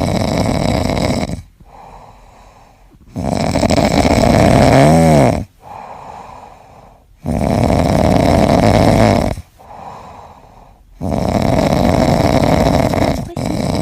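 Dog snoring loudly: four long snores, one every three to four seconds, with quieter breaths between them.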